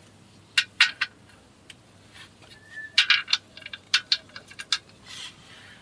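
Light metallic clicks and clinks of a wrench on the engine-oil drain plug as it is refitted and tightened after the oil change drain. A few clicks come about a second in, then a quicker cluster of clinks from about three seconds in.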